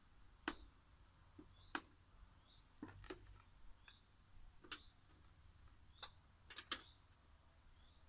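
Irregular sharp clicks and snips of a hand tool cutting the outer semiconductor layer off a high-voltage cable end, about eight in all, two or three close together near the end. Faint bird chirps between.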